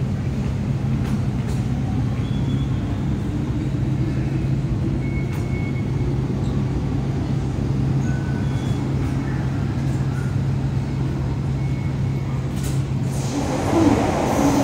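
MTR metro train running along the platform behind platform screen doors: a steady low rumble and hum. About 13.5 seconds in, it changes to the louder, busier noise inside a train car.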